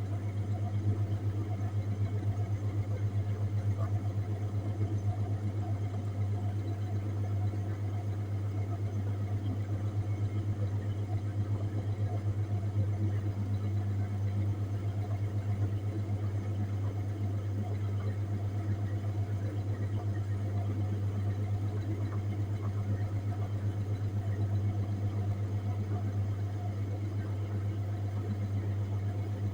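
Refrigerated display case running with a steady low hum that does not change.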